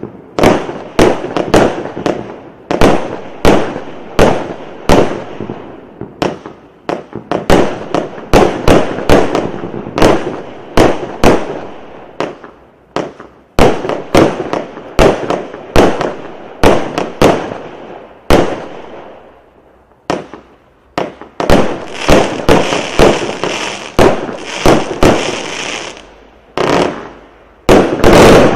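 A 100-shot, 0.8-inch fireworks cake firing, a steady string of sharp bangs about two a second as its shots launch and burst. There is a brief lull about two-thirds of the way through, and a loud, tightly packed cluster of shots near the end.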